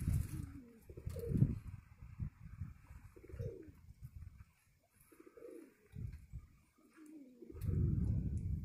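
Domestic pigeons cooing, several short falling coos spread through a few seconds, with a low rumble near the end.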